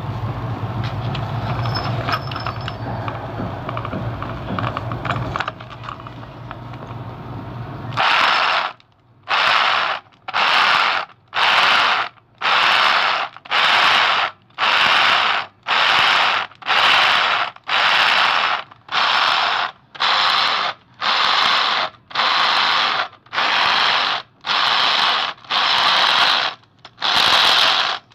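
SDS-plus rotary hammer driving a 65 mm concrete core bit into a concrete wall. It runs in short, loud bursts about once a second with near silence between them, starting about eight seconds in. Before that there is a steady low rumble.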